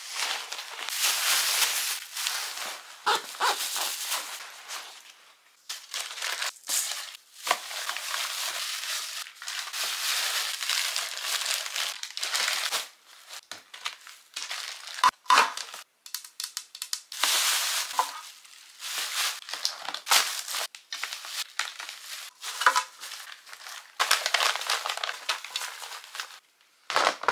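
Packing a bag by hand: clothes, bags and other items rustling and crinkling as they are handled and stuffed in. The sound comes in irregular stretches broken by short gaps, with the odd sharp click.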